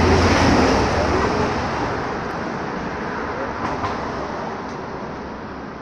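A passing road vehicle: a loud rumble and rush of traffic noise, loudest at the start and fading steadily over the next few seconds as it moves away.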